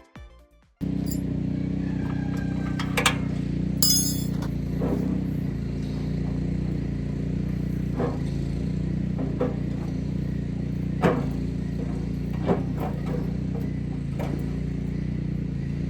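An engine runs steadily throughout, with a few sharp metallic clinks and knocks of tools or parts being handled.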